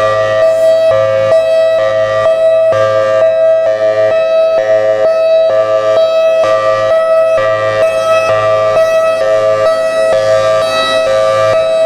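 Federal Signal Thunderbolt 1003 rotating outdoor warning siren sounding its Hi-Lo signal: a loud, steady alternation between a high and a low tone, switching several times a second.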